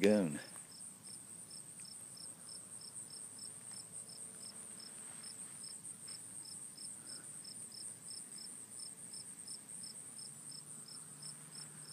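Insects singing in grass: one steady high trill, and another chirping in an even rhythm of about two to three chirps a second.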